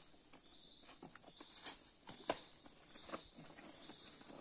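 A steady, high forest insect drone with scattered faint knocks and rustles from a sack being handled and tied onto a mule's pack saddle. The sharpest click comes a little past halfway.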